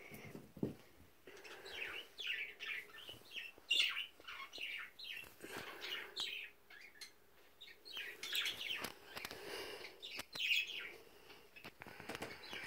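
Pet bird in its cage chirping repeatedly in short calls, with a few faint knocks in between.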